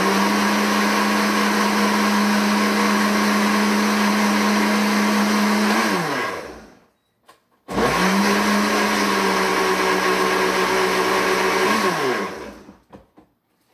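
Countertop blender blending a milk smoothie in two runs, about six seconds and then about four and a half, with a short silent gap between them. Each run is a steady motor hum that falls in pitch as the motor winds down after being switched off.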